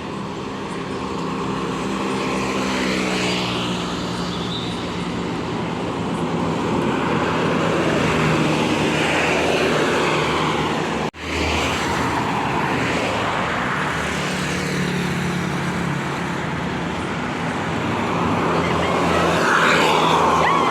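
Tour buses' diesel engines running as the buses drive by, their pitch shifting, over steady road traffic noise. The sound cuts out for a moment about halfway through.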